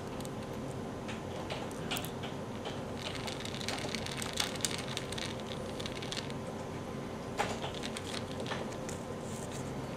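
Small Phillips screwdriver turning a tiny screw out of a micro RC helicopter's plastic tail-boom clamp, with fingers handling the boom: light clicks and scrapes, bunched a few seconds in and again near the end. A steady faint hum runs underneath.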